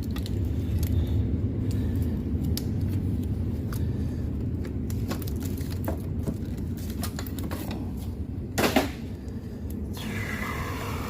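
Hand-tool work on a car's alternator: scattered metal clicks and knocks over a steady low rumble, with one louder knock about three-quarters of the way through.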